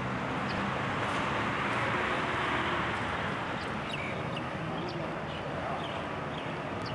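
Steady outdoor background noise, with short high bird chirps scattered through the second half.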